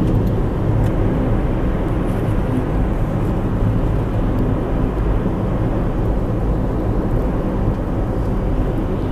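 A car being driven: steady engine and road noise, heaviest in the low end, running without a break.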